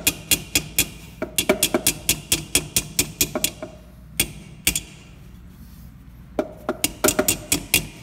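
Quick light taps on the copper refrigerant line, seating it onto the refrigerator compressor's tube stub before brazing. The taps come in quick bursts of several a second, with a pause of about a second and a half in the middle.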